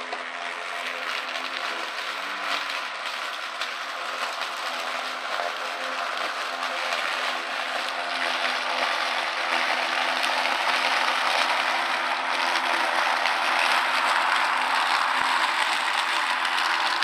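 Ryobi 40V brushless cordless electric lawn mower running while cutting grass and picking up fallen leaves: a steady motor hum under the rush of the spinning blade, growing gradually louder as the mower comes closer.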